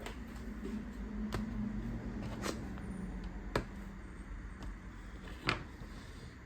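A few separate light clicks and taps, four or so spaced a second or more apart, over a low steady hum; typical of small handling knocks on a bench.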